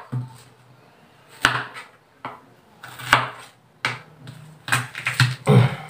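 Knife cutting ginger on a wooden chopping board: a scatter of irregular knocks and scrapes, several close together near the end.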